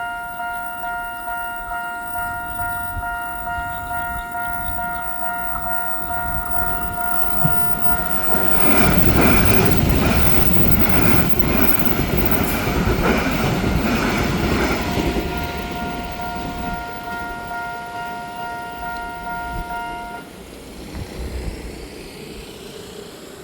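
Railway level-crossing warning signal ringing a repeating electronic multi-tone chime, about twice a second. About eight seconds in, a train passes over the crossing with its wheels clattering on the rails for about six seconds. The chime stops about twenty seconds in.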